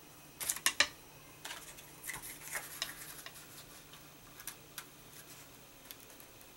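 Cardstock and a clear acetate strip being handled and pressed onto a layered card: a quick run of sharp clicks about half a second in, then scattered light rustles and taps, and a few faint clicks near the end.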